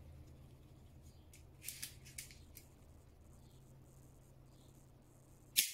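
Handling noises of a plastic airsoft pistol and its magazine: a few brief, high-pitched scrapes and rustles about a second and a half in, then one sharper, louder scrape near the end.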